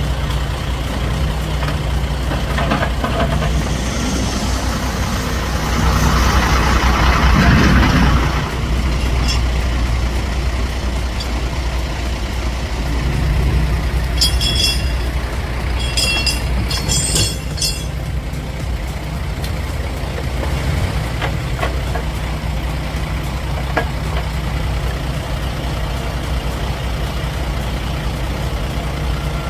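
Loaded logging truck's diesel engine running steadily as the truck moves. A loud hiss comes about six to eight seconds in, and a few short high-pitched squeals come around the middle.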